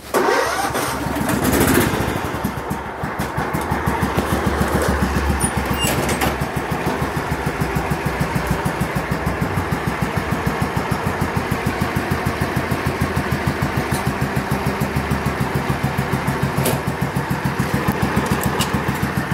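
A mud runt's small mower engine starts up and runs, uneven for the first couple of seconds, then settles into a steady, evenly pulsing run.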